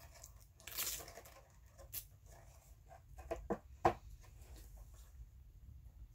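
Hands handling a glossy cardboard eyeshadow palette box: a brief rustle about a second in, then a few light taps and clicks, the loudest about four seconds in.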